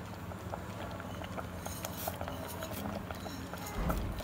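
Mango chutney in sugar syrup simmering in a pot, with small bubbles popping in scattered ticks. A low thump comes near the end.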